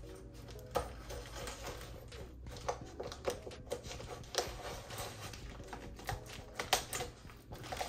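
Kitchen scissors snipping through plastic meat packaging, with the wrap crinkling as the packs of chicken drumsticks are handled: a string of irregular sharp clicks and rustles.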